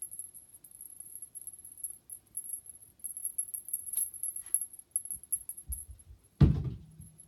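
Cat-teaser toy jingling in quick, shaky bursts as it is waved about, with a short pause about two seconds in. About six and a half seconds in comes a single heavy thump, the loudest sound.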